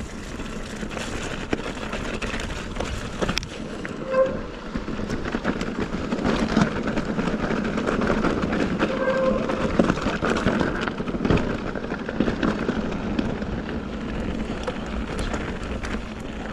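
Mountain bike riding over rough, rocky ground: a steady rumble from the tyres with the bike rattling and knocking continually, and two brief squeaks, about four and nine seconds in.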